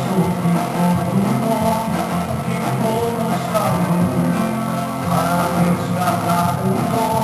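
Revival-style worship music with guitar, playing steadily.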